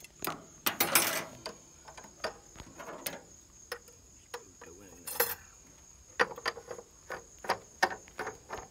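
Faint steady high drone of insects, with scattered light clicks and taps and a couple of brief rustles, one about a second in and one about five seconds in. No engine is running.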